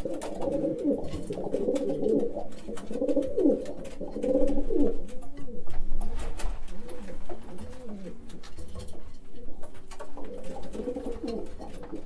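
Racing pigeons cooing, several birds overlapping with low, rolling coos.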